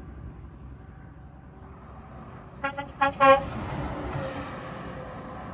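Twin Hadley H00870CN truck air horns on a Peterbilt 567 dump truck, sounded in three short blasts in quick succession about two and a half seconds in, the third the longest and loudest. The truck's engine and tyre noise rises as it passes.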